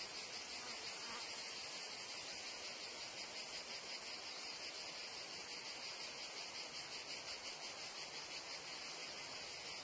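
Steady chorus of meadow insects, cicadas and crickets, trilling together: a dense, high-pitched, rapidly pulsing buzz at an even level.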